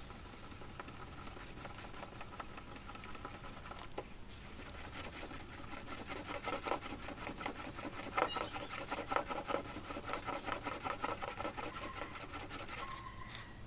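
Small sanding block wet-sanding a car's clear coat by hand, scrubbing in quick back-and-forth strokes, louder in the second half. The sanding is levelling clear-coat runs flat with the surrounding paint.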